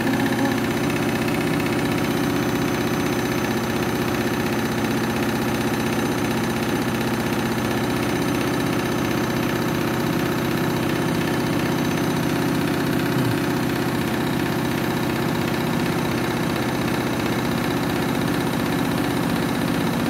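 Front-loading washing machine spinning an overloaded drum on its final spin: a steady motor hum and drum rumble that holds one constant pitch.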